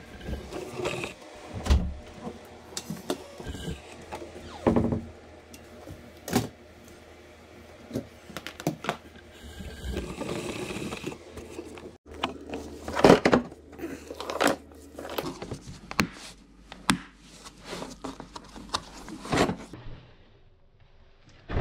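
Irregular knocks, clunks and scrapes of objects being handled and set down, over a faint low hum that stops about two thirds of the way through.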